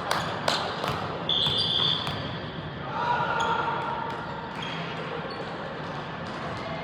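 Ball impacts and sneaker squeaks on a gym court during a game: a few sharp smacks in the first second, then short high squeaks, over the hall's background murmur.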